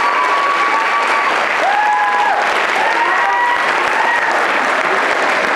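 Audience applauding steadily after a dance performance, with a few voices whooping and calling out over the clapping.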